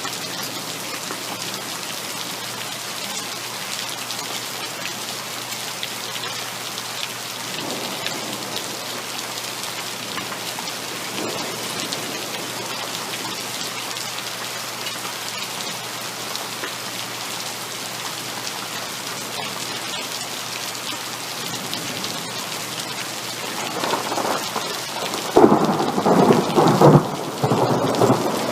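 Heavy rain falling steadily, with a clap of thunder rumbling in near the end and crackling loudly for a few seconds.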